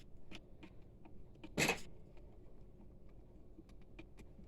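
Faint scattered clicks and taps of hands and a screwdriver working on an inkjet printer's metal chassis, with one brief louder scrape about a second and a half in.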